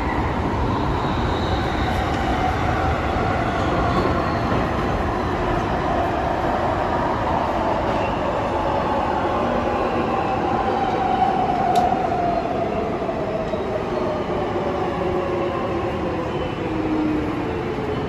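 Jubilee line 1996-stock Underground train heard from inside the carriage, running with a steady rumble while its traction motor whine falls steadily in pitch as the train slows down. A single sharp click about two-thirds of the way through.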